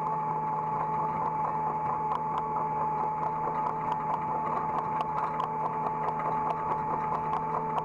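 Hydraulic excavator running, heard from the operator's seat: a steady engine drone with a constant high whine over it and light irregular ticks.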